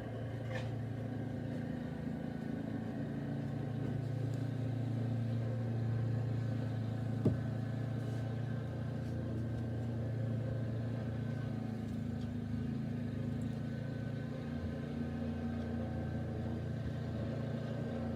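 An engine running steadily with a low, even hum, and one sharp click about seven seconds in.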